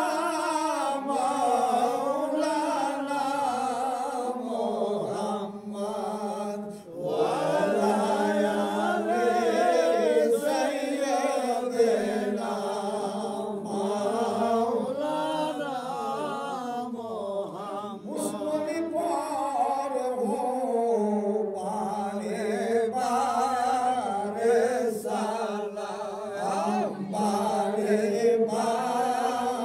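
Devotional Sufi chanting: a slow sung prayer whose melody wavers up and down, with a short break about seven seconds in.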